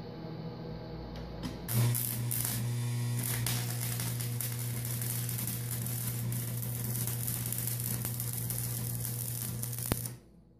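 Stick-welding arc from a Montgomery Ward Powercraft welder, struck about two seconds in and held for about eight seconds with a steady hum and crackle, then cut off suddenly near the end. Before the arc a faint mains hum is heard.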